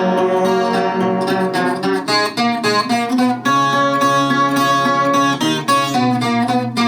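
Chilean guitarrón, a 25-string plucked folk guitar, played solo in a strummed and plucked instrumental passage between sung lines of a payador verse, with ringing chords that change every second or so.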